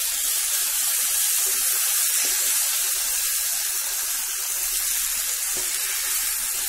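Cubed brinjal (eggplant) frying in hot mustard oil in a steel wok: a steady sizzle.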